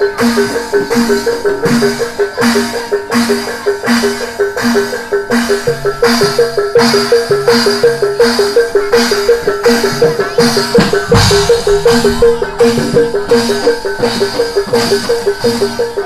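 Live gamelan music of the kind played for barongan: pitched metal gong-chime and metallophone notes repeat in a fast, even pattern over drums. Sharp metallic crashes come about one and a half times a second, with a deep low stroke about eleven seconds in.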